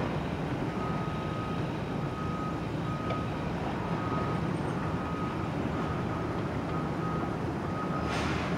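Heavy demolition machinery's diesel engine running with a backup alarm beeping in a steady series, a little faster than once a second. A short burst of noise comes near the end.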